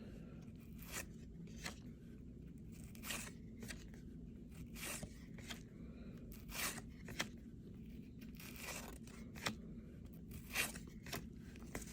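1988 Topps baseball cards being flipped through one by one, a short dry slide or flick of card stock every second or so at irregular intervals, over a low steady room hum.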